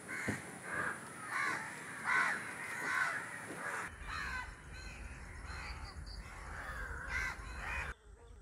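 Crows cawing over and over, about one harsh call every second, with a low steady rumble underneath from about halfway through.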